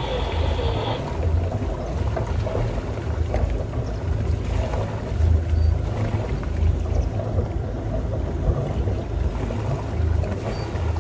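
A sailboat's engine running at low speed: a steady low rumble that swells and eases irregularly.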